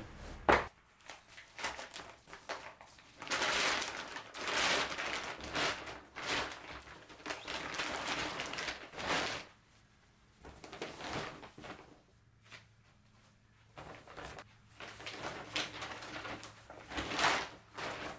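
Large white tote bags rustling and crinkling as folded clothes and bedding are handled and packed into them, coming in several swells of a second or more with quieter gaps. A sharp click or knock about half a second in.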